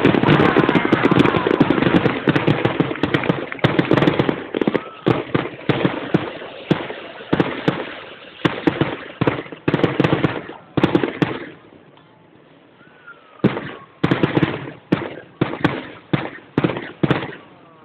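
Fireworks finale: a dense, rapid barrage of bangs and crackles that thins to single bangs about every half second, falls quiet for about two seconds, then breaks into another quick run of bangs.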